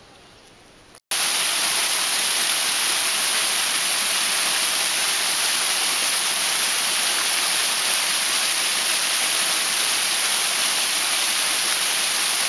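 Small waterfall pouring over rocks: a loud, steady rush of falling and splashing water that starts abruptly about a second in, after a faint outdoor hush.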